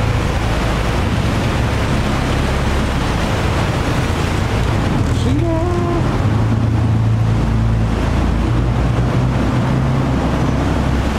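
A sightseeing boat's engine runs with a steady low hum under an even rush of water and wind noise.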